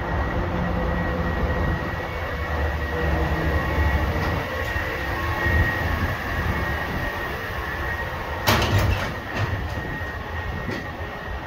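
Garbage truck running with a steady low rumble and a thin high tone over it, and a sharp metallic clank about eight and a half seconds in, followed by a few lighter knocks.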